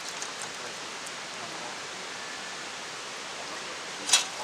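Steady rushing outdoor hiss, with one loud sharp crack about four seconds in, typical of a campfire popping.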